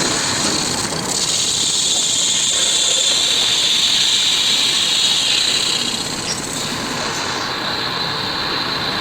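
A steady, loud hiss over a low mechanical rumble, starting about a second in and easing near the end.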